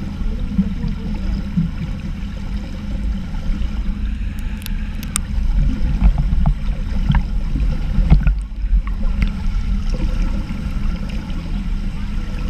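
Muffled underwater pool noise heard through a waterproof camera housing held below the surface: a steady low rumble, with a few sharp ticks in the middle.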